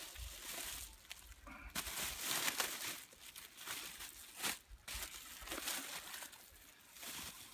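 Black plastic bag rustling and crinkling in irregular bouts as a deer quarter is lowered into it and the bag is gathered around the meat.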